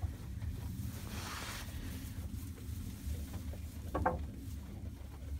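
Steady low rumble on the microphone, with a short scratchy sound about four seconds in.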